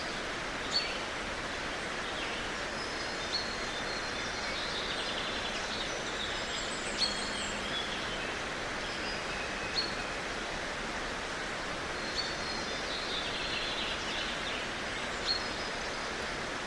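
Small birds chirping over a steady outdoor background hiss: one short, sharp high call repeats about every two to three seconds, with softer twittering between.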